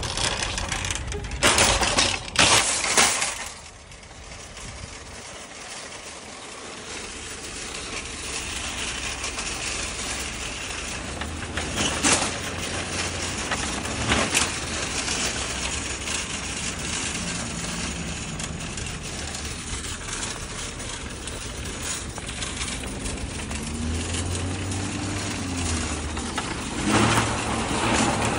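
A line of nested red plastic shopping carts being pushed over asphalt: the casters rattle and rumble steadily, with louder clattering of the carts knocking together near the start and near the end, and a few sharp knocks along the way.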